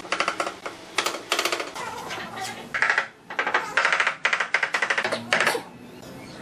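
Rubber mallet tapping rapidly on a large ceramic tile slab to bed it onto a brick pillar. The taps come in quick runs of about ten a second, with a short pause a little past the middle, and they fall quieter near the end.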